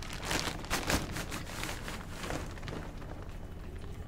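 Polythene bag crinkling and rustling as the outer bag is pulled off the inner fish bag, the crackle thickest in the first two seconds and thinning after.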